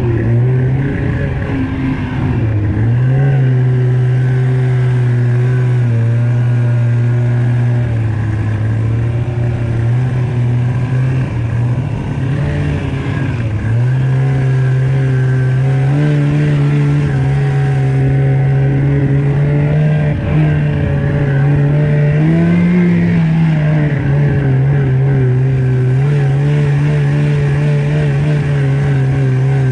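Snowmobile engine running at a steady speed, its pitch dipping and rising a few times with the throttle.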